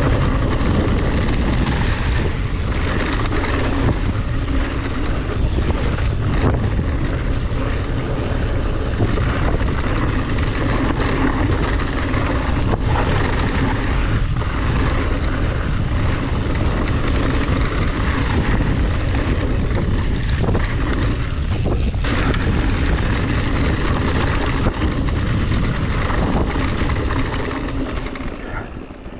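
Wind rushing over the microphone of a camera on a mountain bike riding down a trail, a steady loud noise that fades out near the end.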